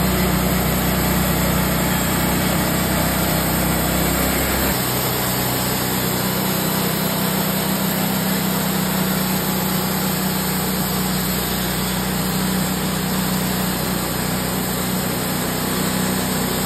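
Wood-Mizer portable bandsaw mill running steadily as its band blade cuts lengthwise through a cedar log. A low rumble underneath drops away about five seconds in.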